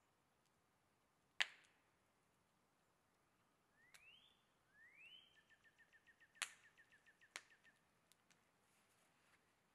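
Quiet woodland: a bird gives two rising whistled notes, then a fast even run of short chirps, about five a second. A few sharp single clicks sound around it, the loudest about a second and a half in.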